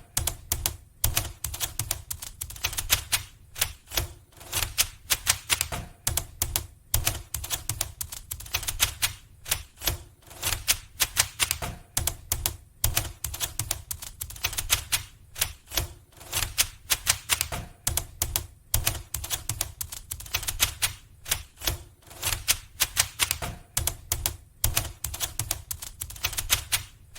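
Typing on a retro typewriter-style keyboard: fast runs of crisp key clicks, several a second, broken by short pauses every few seconds.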